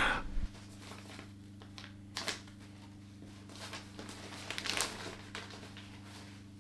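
Wrapping paper crinkling and rustling in short bursts, about two seconds in and again near the five-second mark, over a low steady hum.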